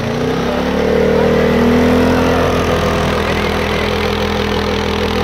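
Arctic Cat 550 ATV engine held at high revs as its wheels spin in deep snow, throwing snow up while fighting for traction. The revs climb over the first second or two, then hold steady.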